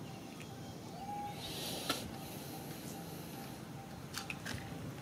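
Steady outdoor background with a brief rustle about a second and a half in, a single sharp click near two seconds, and a few fainter clicks near the end.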